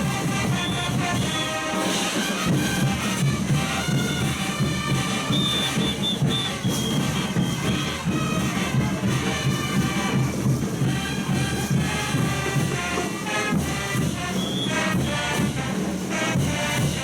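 A brass band playing traditional Bolivian parade music, with many held notes.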